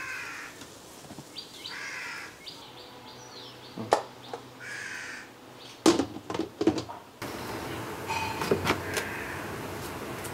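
A crow cawing about three times in the background, with a few sharp clinks of a steel turner and spoon against stainless-steel lunch-box containers.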